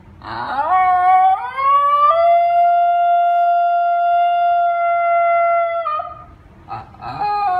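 Basenji howling: one long call that rises in pitch for about two seconds, then holds a single steady pitch for about four seconds and cuts off. Near the end a second rising howl begins.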